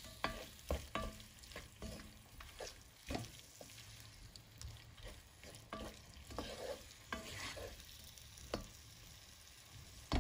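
Diced onion and tomato frying in oil in a non-stick pot, stirred with a wooden spoon. There is a steady soft sizzle, with irregular knocks and scrapes of the spoon against the pot.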